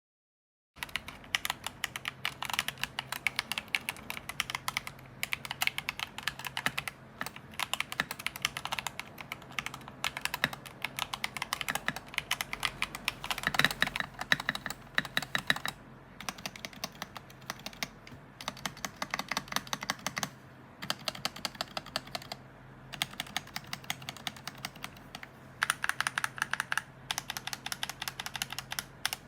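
Typing on a KEMOVE Snowfox DK61 60% mechanical keyboard fitted with lubed and filmed FEKER Holy Panda tactile switches on a brass plate, in a plastic case with foam and a tape mod. Rapid keystrokes start about a second in and come in runs, with short breaks between them.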